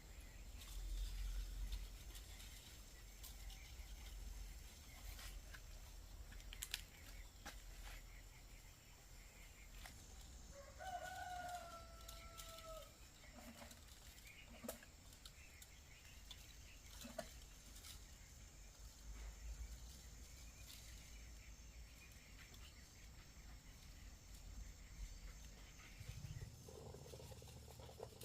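A single faint animal call about ten seconds in, rising briefly and then held for about two seconds, over a low rumble with scattered clicks.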